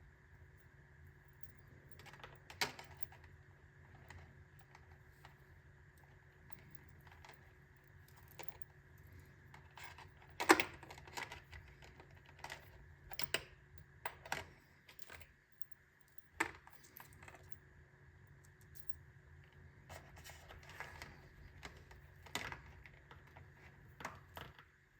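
Irregular sharp clicks and taps, a dozen or so at uneven gaps, the loudest about ten seconds in, like small hard objects being handled, over a steady low hum.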